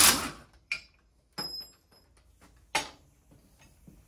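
The last stroke of a ratchet wrench with a socket undoing a MacPherson strut's top nut, then a few small metallic clicks and knocks from the loosened strut parts. One clink about a second and a half in rings briefly and brightly.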